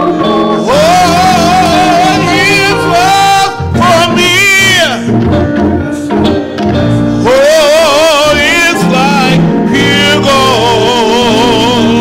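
A man singing a slow gospel song in long, drawn-out lines with wide vibrato, without clear words. He is accompanied by electric guitar and keyboard.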